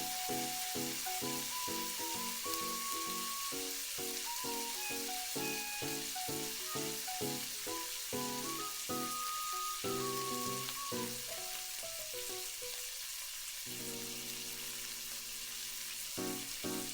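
Egg mixture sizzling in hot oil in a tamagoyaki pan, a steady hiss, under background music. The music is a quick run of notes that settles on one held chord near the end.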